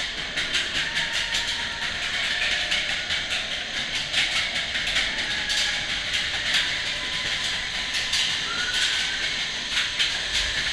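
Matterhorn Bobsleds coaster car clattering up the chain lift inside the mountain: a rapid, uneven run of mechanical clicks and rattles over a steady hiss.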